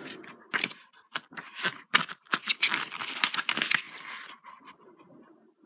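Pages of a glossy paperback guidebook being turned and leafed through by hand: a quick series of papery swishes and rustles that thins out near the end.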